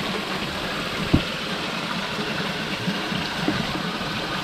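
Waterfall rushing steadily, with a single short knock about a second in.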